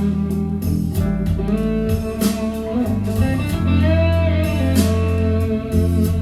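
Blues-rock music with guitar, some slide guitar, a steady bass line and regular drum beats, played from a vinyl record on the hi-fi setup.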